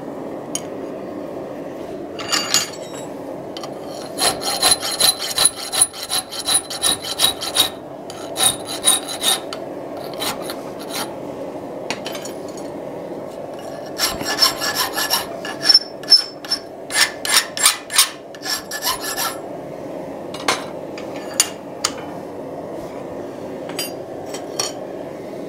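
Metal file scraping across a forged steel hasp clamped in a vise: two spells of quick strokes, about two to three a second, with a few single strokes later, over a steady background hum.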